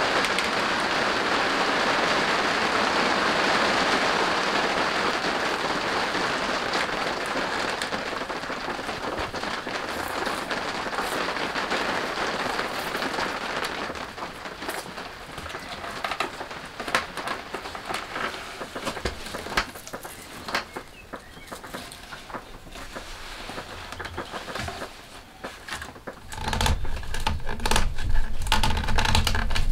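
Steady rain that fades away over the first half, then scattered clicks and knocks of birch poles and twine being handled as the poles are lashed into a bed frame. A louder low rumble starts near the end.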